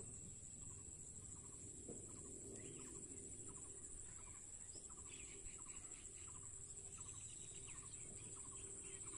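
Faint outdoor ambience: short animal calls repeat about twice a second over a steady high hiss.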